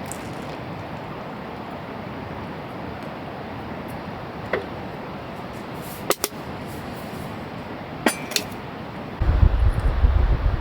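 Steady background hiss broken by a few light clinks, then strong wind buffeting the microphone with a loud low rumble from about nine seconds in.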